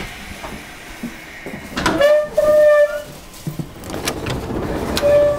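A departure signal tone inside a 201-series electric commuter train car sounds twice in quick succession, a short note then a longer one, about two seconds in, and the pair comes again near the end. Low train rumble and a few door knocks lie underneath.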